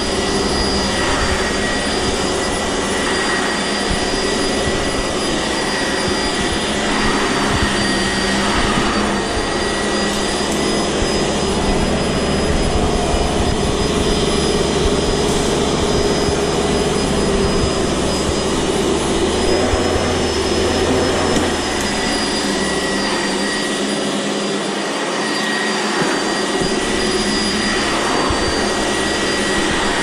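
Sanitaire SC679J upright vacuum cleaner running steadily on carpet: a constant rush of air with a steady high whine from the motor, and a low rumble that shifts as it is pushed back and forth.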